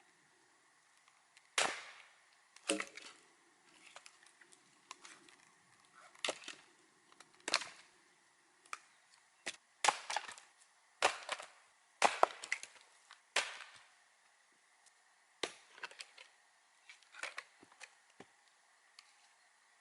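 Axe chopping firewood: more than a dozen sharp wooden blows at irregular intervals, a few of them followed by a short crackle of splitting wood.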